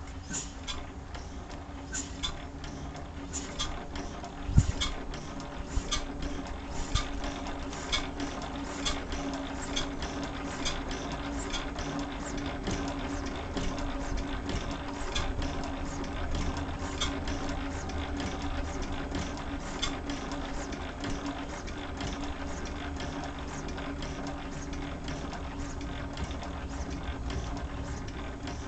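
1911 Gardner No. 1 stationary engine turning over after being spun by its flywheel. It makes a regular mechanical clicking that starts sparse and settles to about two clicks a second, over a steady hum, with one heavy thump a few seconds in.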